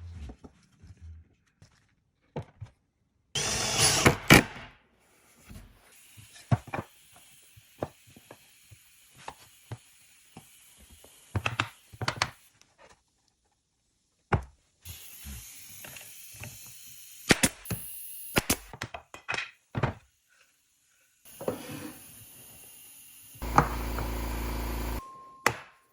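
Woodworking shop sounds: a series of knocks and clatters of wooden parts being handled and fitted, with short runs of a power tool, the longest and steadiest near the end.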